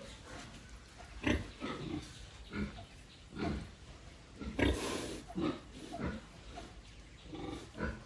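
Pig grunting: a string of short, low grunts at about one a second, uneven, the loudest a little before the middle.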